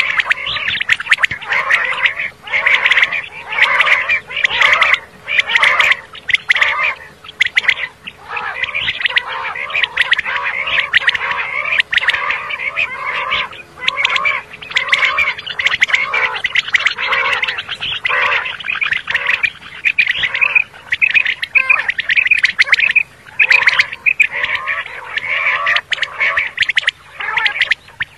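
Common quail calling in a rapid, near-continuous run of short repeated notes, with only brief pauses.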